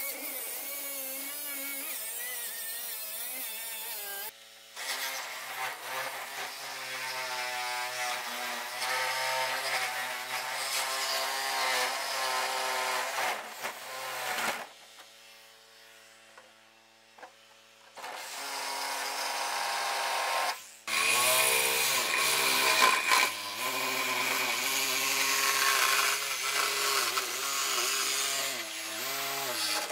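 Angle grinder with an abrasive cutoff wheel cutting through steel 55-gallon drums, its whine wavering in pitch as the wheel bites. It falls away for a few seconds about halfway through and then runs again, loudest in the last third.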